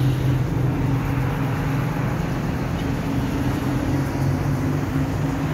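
City street traffic: vehicles running along the road with a steady low engine hum.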